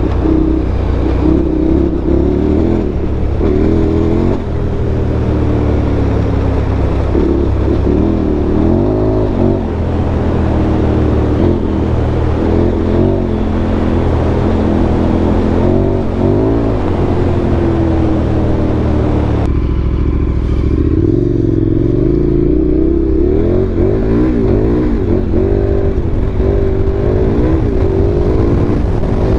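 KTM 1290 Super Adventure R's V-twin engine running while riding off-road, its pitch rising and falling again and again as the throttle is worked. About two-thirds of the way through, the higher rushing hiss drops away suddenly while the engine carries on.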